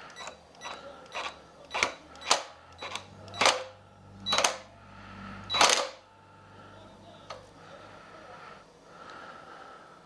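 Metal parts and hand tools clinking and clanking as they are handled: about a dozen sharp knocks with a short metallic ring in the first six seconds, then quieter with a single knock.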